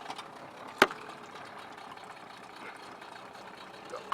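9.8 hp Tohatsu-built Nissan outboard motor starting on one pull and running at a steady idle, with one sharp click about a second in.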